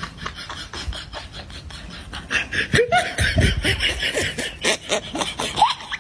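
A person laughing in quick repeated bursts, breaking into louder laughter with rising and falling pitch a little over two seconds in.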